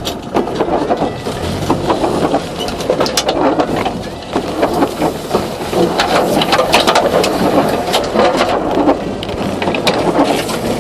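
Land Rover Series 3 driving off road through mud and water: a loud, dense rush of splashing with many knocks and clatters throughout.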